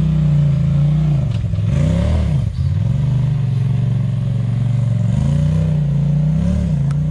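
Side-by-side UTV engine under throttle as the machine climbs a rock ledge, its note rising and falling twice with the throttle.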